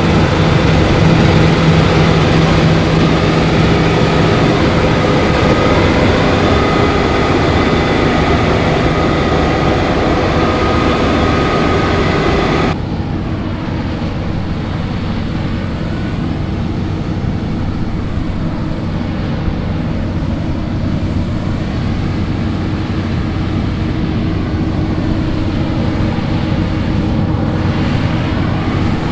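Claas Lexion 8900 combine harvester running steadily under load: a deep engine drone with the whine of its threshing and cleaning machinery. A little under halfway through, the sound turns abruptly duller, losing its hiss and higher whine, and then goes on steadily.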